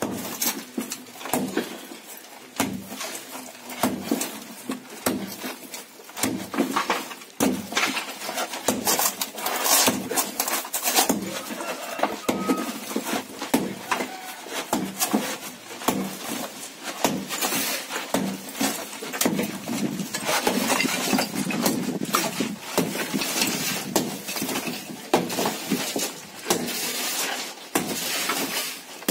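Sledgehammer blows on a plastered brick wall, knocking out bricks: repeated irregular strikes every second or so, with brick and plaster breaking and falling.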